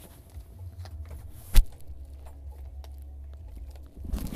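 Handling noise from a phone being moved while it records: a low rumble with scattered small clicks, one sharp knock about a second and a half in, and a few more knocks near the end.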